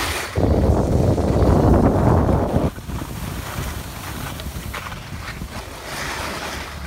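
Wind buffeting the phone's microphone: a loud low rumble starting about half a second in and cutting off abruptly near the three-second mark, then a quieter steady outdoor rumble.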